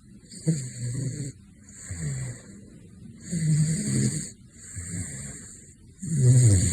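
A caracal snoring in its sleep: about five snoring breaths a second or so apart, each a low rumble with a hiss over it. The last breath, near the end, is the loudest.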